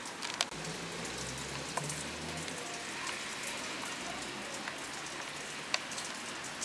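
Steady rain falling, with scattered close drips ticking, and a faint low rumble for about two seconds near the start.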